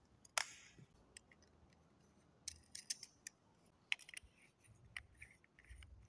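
Faint, scattered clicks and light taps of a plastic lamp holder being fitted back together by hand. One sharper click comes about half a second in, and small runs of clicks come in the middle.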